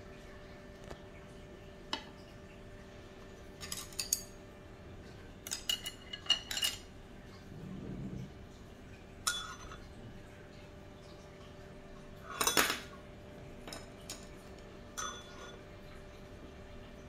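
A metal spoon clinking and scraping against ceramic bowls and plates: scattered short clinks, some in quick clusters, with the loudest clatter past the middle. A faint steady hum runs underneath.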